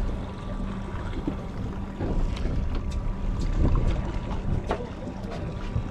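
Wind rumbling on the microphone aboard a small fishing boat, with a steady low hum and a few light clicks and knocks.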